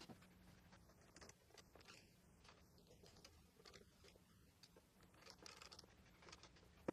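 Faint scratchy crunching of a screwdriver driving small screws into a 3D-printed plastic speaker box, in short irregular bursts that grow busier near the end.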